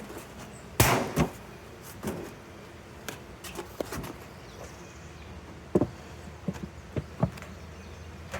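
Knocks and scrapes of wooden beehive parts being handled: two loud knocks about a second in, then scattered lighter knocks and clicks, with a sharper pair a little before the end.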